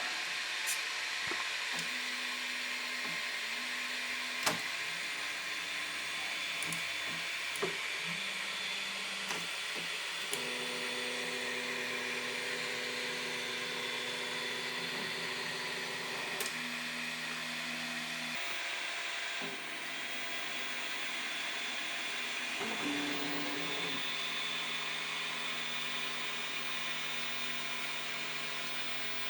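Flashforge Finder 3D printer running a print: a steady fan whir under stepper motors humming in steady tones that switch pitch every few seconds as the axes move, with a few faint clicks.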